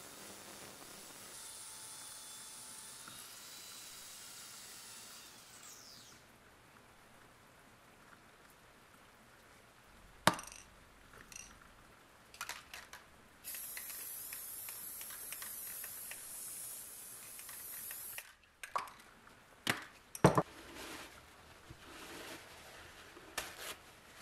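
Aerosol can of chain wax spraying onto a steel axe head: a steady hiss lasting about five seconds, after a few sharp clicks. Then come sharp knocks and the rustle of paper towel as the wax is wiped over the metal.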